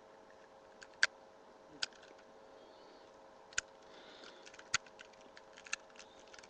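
A few faint, sharp plastic clicks, about five spread over six seconds, as the joints of a plastic WereGarurumon action figure are moved by hand.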